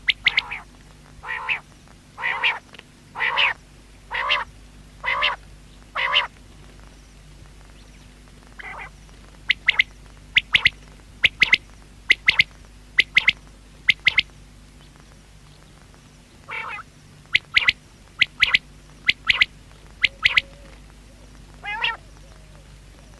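Common quail calling in short repeated notes. First comes a run of lower, wavering calls about one a second. After a pause of a few seconds come clusters of sharp, high pips.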